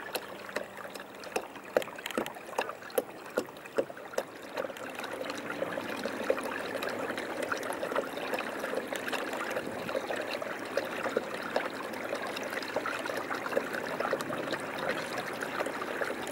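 Water lapping and trickling, with many small irregular ticks and splashes; it grows louder and denser about five seconds in.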